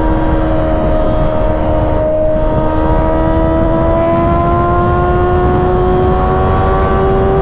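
2024 Kawasaki ZX-6R's 636 cc inline-four engine pulling steadily in one gear at highway speed, its pitch slowly rising as the bike gains speed, over low wind noise.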